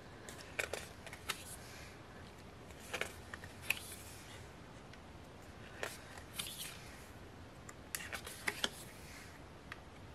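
Stiff photocard pages flipped and handled: scattered soft clicks and brief paper rustles.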